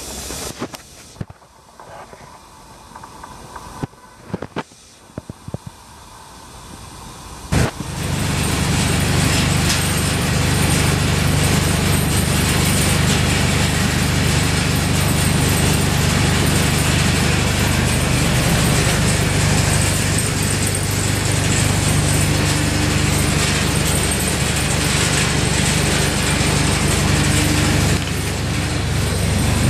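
Gas burner of a soda kiln: a few faint knocks, then a sharp pop about seven and a half seconds in as the burner lights, followed by the steady, loud rushing noise of the burner firing into the kiln.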